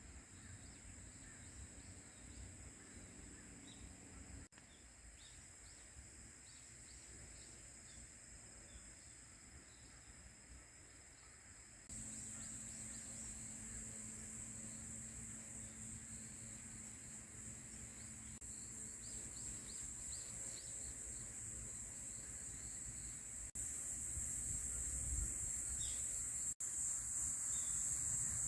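Outdoor insect chorus: a steady high-pitched chirring, with faint short chirps above a low rumble. It gets abruptly louder twice, about 12 seconds in and again near the end.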